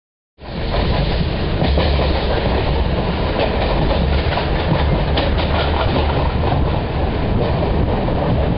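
Loud, steady mechanical noise, heaviest in the low end, with scattered rapid clicks; it cuts in suddenly about half a second in.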